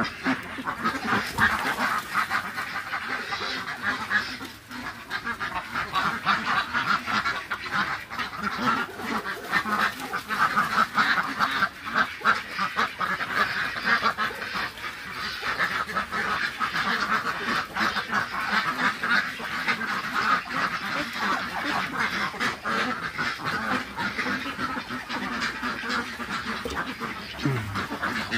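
A large flock of domestic ducks quacking continuously, with many calls overlapping into a dense chorus.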